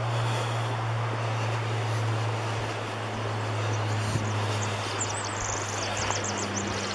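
Steady rush of a forest creek flowing through a canyon, with a low steady hum underneath that fades after about four seconds, and a small bird singing quick high chirps in the last couple of seconds.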